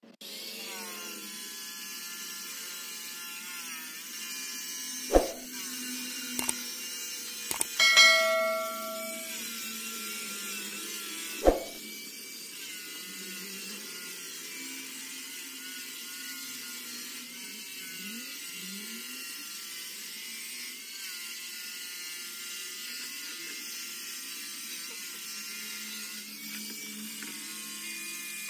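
A small electric power tool's motor runs steadily with a whine whose pitch wavers slightly. A few sharp knocks come in the first half.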